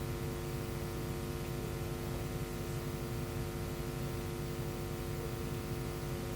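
Steady electrical hum and hiss, several fixed tones held without change, with no other events.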